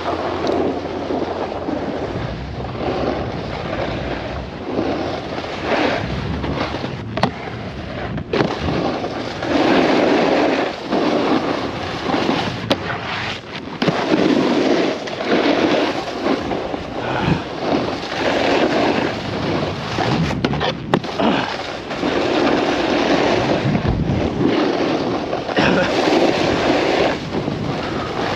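Snowboard edges scraping and sliding over hard-packed snow, swelling and easing with each turn, with wind rushing over a helmet-mounted action camera's microphone.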